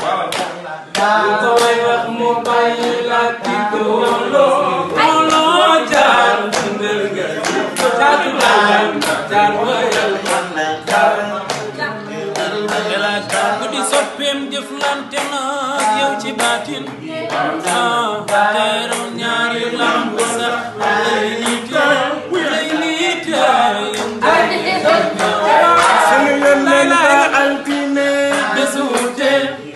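Unaccompanied group singing led by a male voice, over a steady beat of hand claps.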